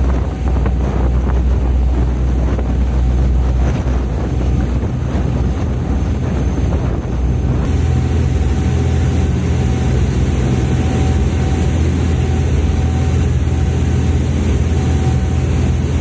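Tour boat's engine running steadily underway, a low hum, with wind buffeting the microphone and water rushing past the hull. About halfway through, a brighter hiss from the churning wake and wind comes in.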